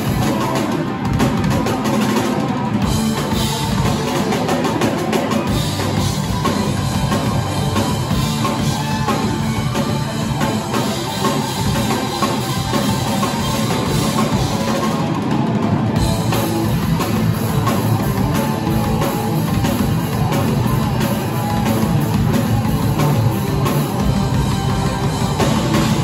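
Live rock band playing loudly, with electric guitars over a drum kit.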